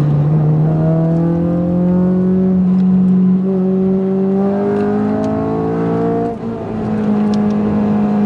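2008 Honda Civic Si's 2.0-litre four-cylinder VTEC engine, breathing through a catless header and race cat-back exhaust, pulling under load with its pitch rising slowly, then holding steady, with a brief drop in level about six seconds in.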